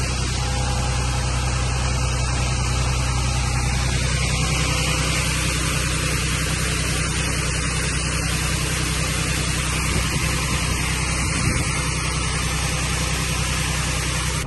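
A heavy engine running steadily at an even speed, driving a grain auger that pours soybeans into an air seeder's tank. A low hum sits under a steady rushing hiss throughout.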